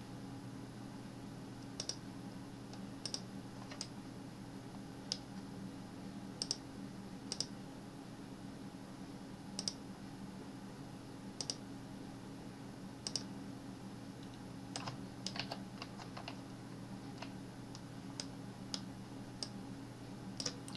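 Computer mouse and keyboard clicks, single sharp clicks at irregular intervals with a short flurry near three-quarters of the way through, over a low steady hum.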